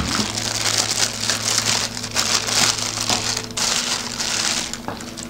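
Clear plastic packaging bag crinkling and rustling as a radiator is pulled out of it and unwrapped, easing off near the end.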